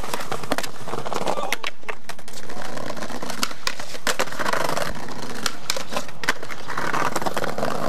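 Skateboard on a concrete curb: the trucks grind and scrape along the curb edge and the wheels roll over rough pavement, with many sharp clacks and ticks.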